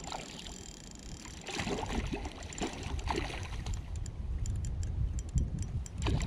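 Water sloshing and splashing in irregular bursts, busier from about a second and a half in, over a low rumble.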